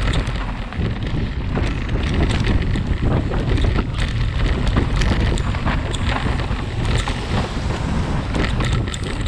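Wind buffeting the microphone on a mountain bike riding fast downhill, over a steady rumble of tyres on dirt, leaves and stones. Frequent sharp clicks and rattles come from the bike over the rough ground.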